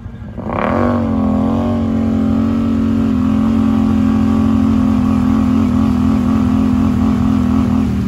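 A side-by-side UTV's engine revs up sharply about half a second in and is held at high revs for several seconds while its tyres spin in deep mud, throwing mud. The revs ease off near the end.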